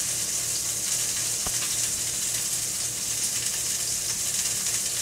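Large steak searing in butter in a hot pan: a steady sizzle, with a faint pop about a second and a half in.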